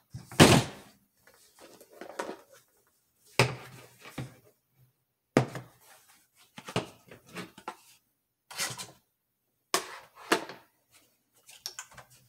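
Scattered knocks and clicks of a hard-shell case being set down and opened on a table and a trigger pull gauge handled, with a sharp knock about half a second in.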